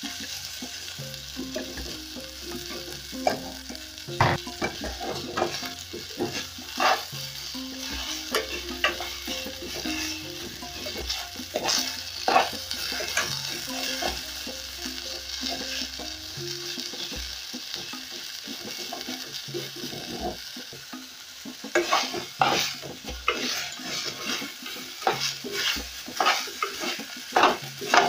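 Floured goat meat browning in hot oil in a metal sufuria, sizzling steadily while metal tongs turn the pieces, clicking and scraping against the pot. The clatter of the tongs gets busier near the end.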